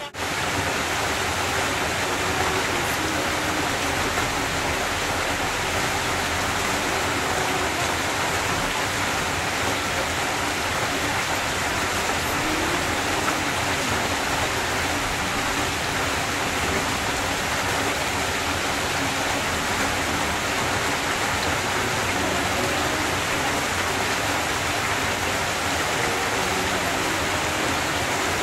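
Water pouring from a boulder waterfall and a raised spa's spillover into a swimming pool, a steady splashing rush.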